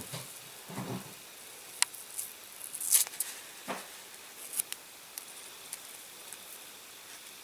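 Masking tape being slowly peeled off the painted die-cast metal of a toy caravan: scattered small ticks and a few brief scratchy rips, the loudest about three seconds in.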